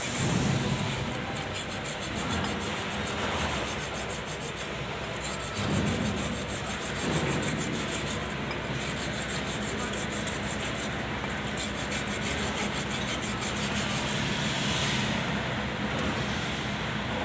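Hand rubbing on the metal of a Kubota B6001 tractor's brake drum, cleaning the inside of the drum around its splined hub, a scratchy sound in rapid back-and-forth strokes with a few brief pauses.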